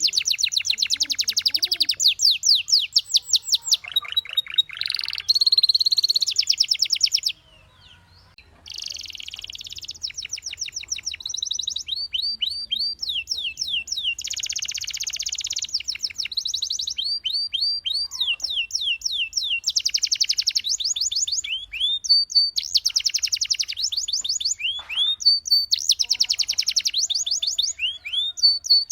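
A canary singing a long, loud song of rapid trills and runs of quick rising notes, with a short pause about seven seconds in.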